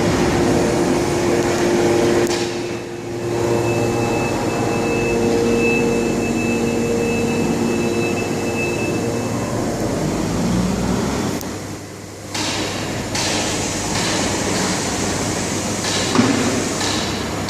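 Flatbed CNC machine running, with a steady whine and hum from its motors for the first ten seconds or so. It dips briefly twice, about three and twelve seconds in, then carries on noisier and more uneven.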